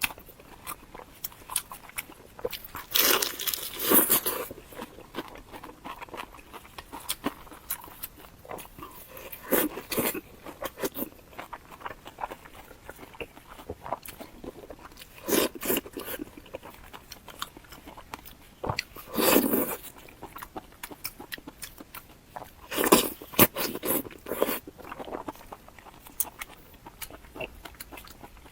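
A person eating crunchy food close to the microphone: bites and crisp crunching come in louder bursts every few seconds, with softer chewing and mouth clicks between them.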